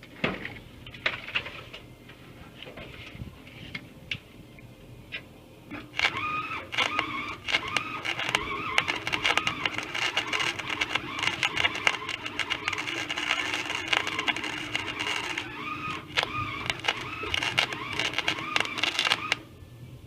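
Flux-core wire-feed welder arc crackling steadily as a weld bead is run on a steel patch, starting about six seconds in and cutting off suddenly near the end. Before it, a few faint clicks.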